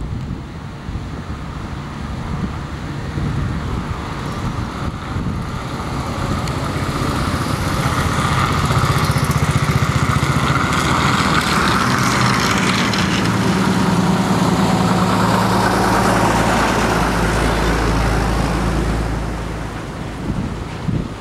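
A column of old military vehicles driving past: escort motorcycles, then a tracked Universal Carrier and army trucks. Their engines grow louder as they come close, are loudest in the middle, and ease off near the end, with a deep truck rumble late on.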